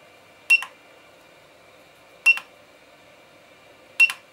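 Short beeps from the YAOGONG 8878D soldering station's control unit as its buttons are pressed to raise the hot air gun's temperature: three beeps a little under two seconds apart, each with a click.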